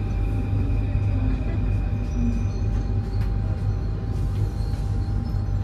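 Paris Métro train heard from inside the car: a steady low rumble with a few thin, steady high-pitched tones above it and faint clicks.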